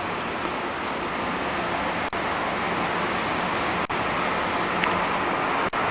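Steady, even road-traffic noise, with the sound cutting out for an instant three times.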